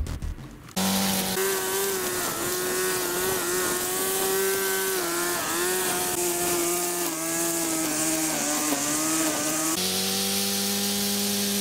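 A small engine running fast, its pitch wavering and dipping briefly now and then. About ten seconds in the sound changes abruptly to a steadier tone with a lower hum underneath.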